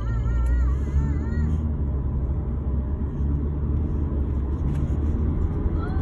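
Steady low road and engine rumble inside a moving car's cabin. In the first second and a half, a few short warbling high tones sound above it.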